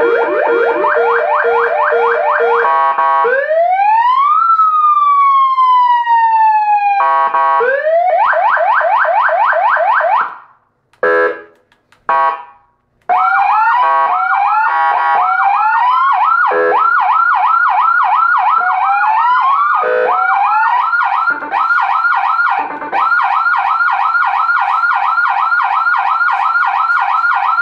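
AS-990 400-watt 12-volt electronic touring siren sounding through its speakers and switching between tone modes. It starts with a fast warble, moves to a slow wail that rises and falls once, then a fast yelp. About ten seconds in come a few short broken blips with silence between them, followed by a long run of rapid repeating whoops.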